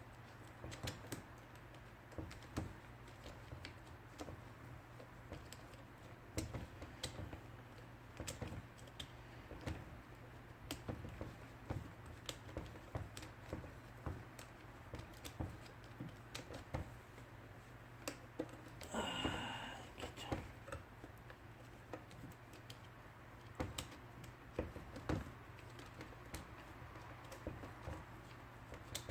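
Scattered light clicks and taps of tools and small metal parts being handled in an IBM Selectric II typewriter's mechanism during a cable repair. A brief, louder rasping sound comes a little past the middle.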